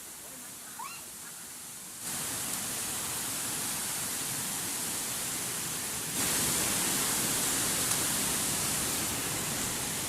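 Steady rush of a waterfall, a constant noise with no pattern, which steps louder about two seconds in and again about six seconds in.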